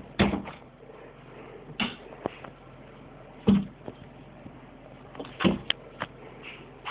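Scattered sharp knocks and thumps, about six in all and a second or more apart, with a cluster of three near the end, from a young boxer dog playing rough around the room.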